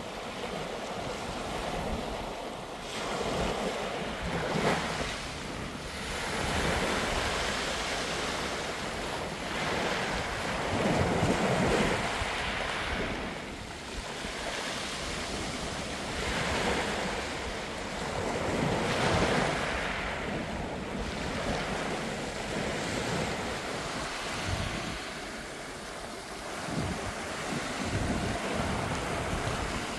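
Small waves breaking and washing up a shingle beach, the surf swelling and falling back every few seconds, with wind buffeting the microphone.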